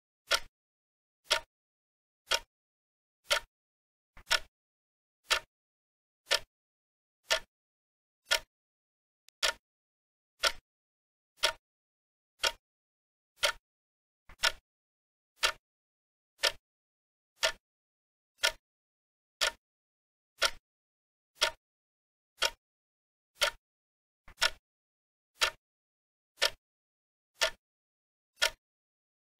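Clock-ticking sound effect, one short sharp tick each second, counting down the time allowed to answer an exercise.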